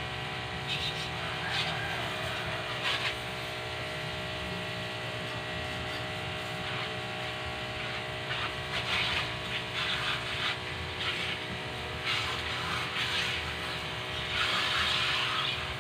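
Electric high-pressure washer running with a steady hum, with hissing bursts of spray that come and go, the longest near the end.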